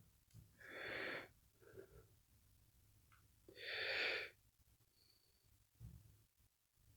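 A man's breathing close to the microphone: two soft breaths about three seconds apart, with a couple of faint ticks between them.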